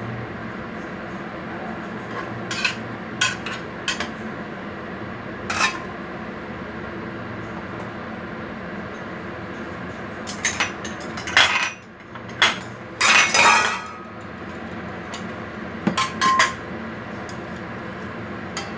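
A metal cooking utensil clinking against a clay pot of fish stew: a dozen or so sharp, scattered taps, with the loudest run of knocks and a short scrape about eleven to fourteen seconds in. A steady low hum sits underneath.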